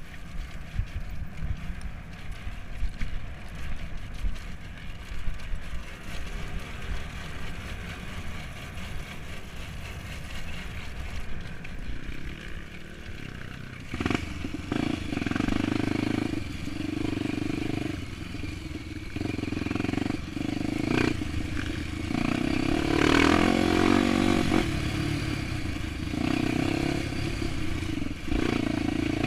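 Single-cylinder four-stroke trail motorcycle engine, a Honda XR250 Tornado bored out to 280cc, riding off-road. For the first half it runs low under a rumble and knocks from the ground. About halfway through it picks up and revs hard in repeated throttle surges.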